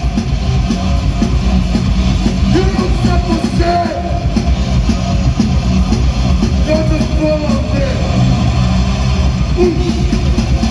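Rock band playing live and loud, with guitar, bass and drums.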